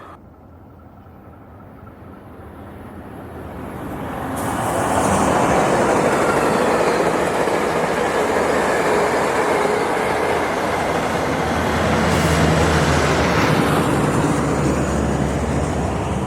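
Metrolink commuter train hauled by diesel locomotives (an MP36PH and a Siemens Charger) passing close by. It builds from a distant sound to a loud rush of wheels on rail within about five seconds, and a diesel engine drone grows stronger near the end.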